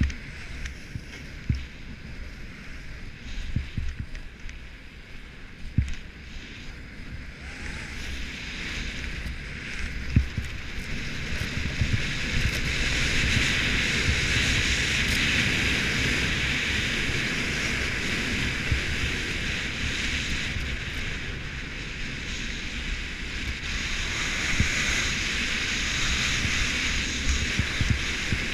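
Skis hissing and scraping over groomed snow at speed, with wind rumbling and buffeting on the microphone. The hiss grows louder from about twelve seconds in as the skier picks up speed.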